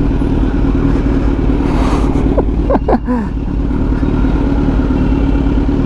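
Kawasaki Z900's inline-four engine, fitted with a Racefit aftermarket exhaust, running at a steady pitch as the bike rides along. A few short sliding tones cut in about halfway through.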